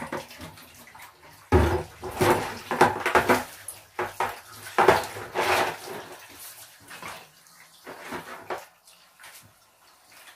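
Water sloshing and splashing in a plastic basin as it is filled from a hose and worked by hand, with a heavy thump about a second and a half in. Busiest in the first six seconds, quieter near the end.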